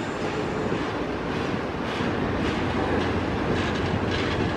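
Canadian Pacific double-stack container freight train rolling past with a steady rumble, its wheels clicking over the rail joints from about halfway through.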